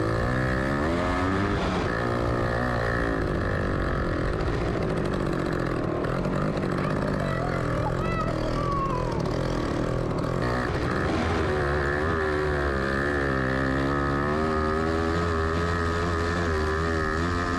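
Off-road vehicle engine labouring up a steep hill, its revs rising and falling as it climbs.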